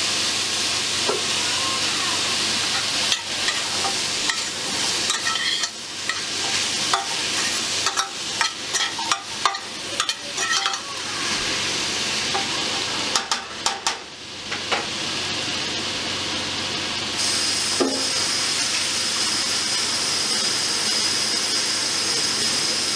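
Diced celery, carrot and onion sizzling as they fry in a stainless steel pot. Through the first half a metal spoon scrapes and clicks against the pot as the vegetables are stirred, then the steady sizzle continues on its own.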